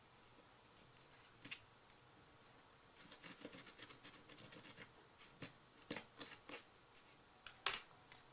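Soft rustling and small clicks of hands handling a cardboard box and a glued-on metal embellishment, with one sharp click near the end.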